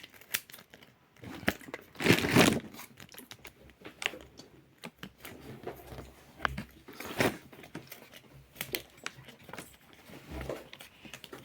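Packaging crinkling and rustling as pieces are taken out of a box, with scattered small clicks and taps. The longest and loudest rustle comes about two seconds in.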